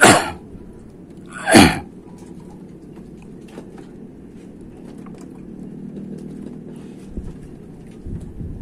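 Two loud sneezes about a second and a half apart, each falling in pitch, over a steady low hum.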